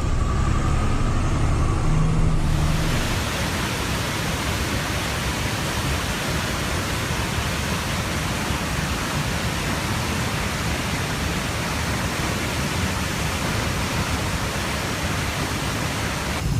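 Low vehicle engine rumble for about the first two and a half seconds, then a steady, even rushing noise that runs on unchanged.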